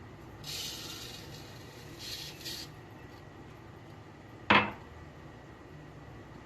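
Kitchenware being handled while baking: a couple of seconds of soft hissing noise, then one sharp clatter about four and a half seconds in, the loudest sound.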